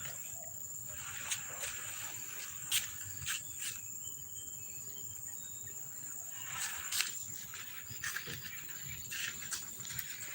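Insects keep up a steady high-pitched drone, with scattered sharp clicks and light rustling over it.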